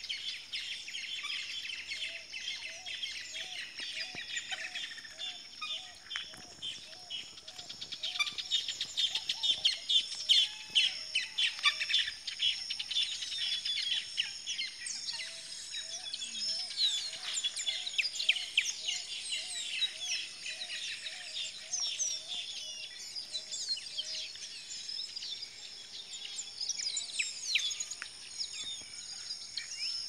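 Many wild birds chirping, trilling and calling together in a dense chorus, busiest about a third of the way in. Beneath them a lower note repeats about twice a second in two long runs, with a faint steady high hum behind.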